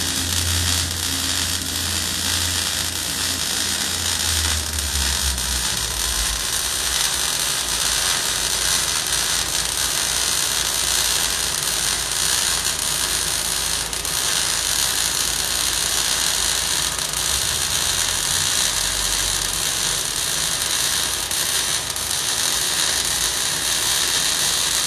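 MIG welding arc running steadily while a fillet weld is laid on a T-joint: a continuous crackling sizzle. A low hum underneath fades out about five seconds in.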